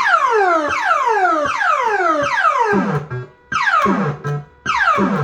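Super Bar X fruit machine's electronic sound effect: a run of falling pitched sweeps, each sliding down over about half a second and repeating a little faster than once a second, with two short breaks in the second half.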